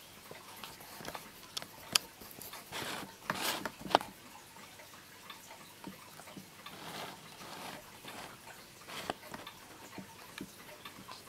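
Antique twin-weight Vienna wall clock ticking steadily, with two louder sharp clicks about two and four seconds in and a few short stretches of rustling noise.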